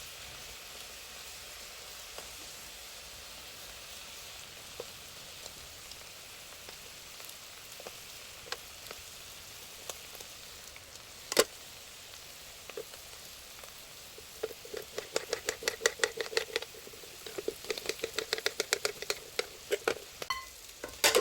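Food sizzling in a pan, heard as a steady hiss with an occasional click. In the last third comes a quick run of small kitchen knocks and clatter, several a second.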